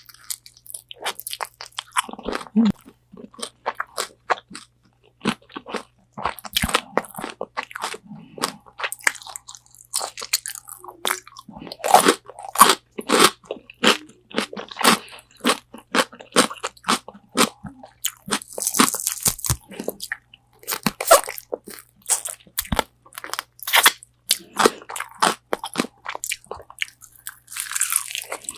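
Close-miked biting and chewing of crispy Korean fried chicken wings: runs of sharp, crackling crunches with short pauses between bites.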